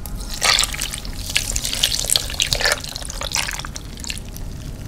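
Beef broth poured from a glass measuring cup into a slow-cooker crock, trickling and splashing irregularly over chunks of raw beef roast.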